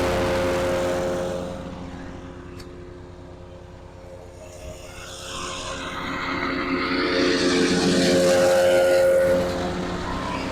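Lumag Rambo HC10 wood chipper with its small engine running steadily. The sound drops for a few seconds, then builds back up to loud, with a rougher noise over the engine, before easing near the end.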